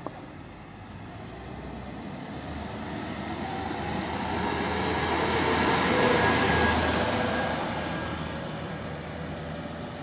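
BOYO self-propelled corn combine harvester's diesel engine driving past at speed. It grows steadily louder as the machine approaches, is loudest about six seconds in as it passes close by, then fades as it drives away down the road.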